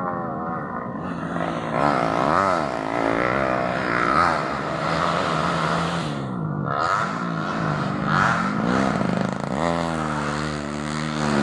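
Racing motorcycle engines revving hard, several at once, their pitch repeatedly climbing and dropping as the bikes accelerate and shift. One engine holds a steadier, louder note near the end.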